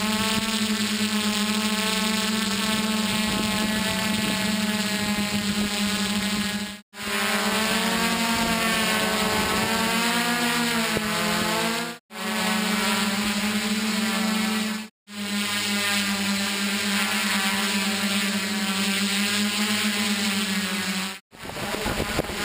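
Camera drone's electric motors and propellers buzzing steadily in flight, heard close up from the craft itself. The pitch wavers between about eight and twelve seconds in as the motors change speed. The buzz cuts out briefly four times.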